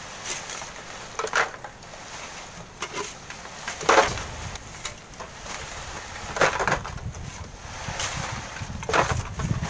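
Flat metal hand shovels scraping into coarse sand and gravel and tipping it into a wheelbarrow. A sharp scraping stroke comes about every two and a half seconds, with lighter scrapes and rattles in between.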